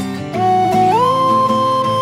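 Instrumental background music: a sustained melody line that slides up about a second in and holds a higher note, over a plucked-string accompaniment.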